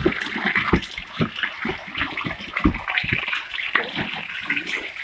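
A mass of live fish writhing in a wet plastic tarp: irregular wet slaps and splashes as their bodies flap against each other and the plastic, over a steady watery squelching.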